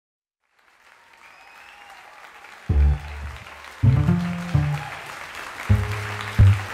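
Club crowd noise with applause fading in, then a low bass line starts about two and a half seconds in, its notes landing roughly once a second.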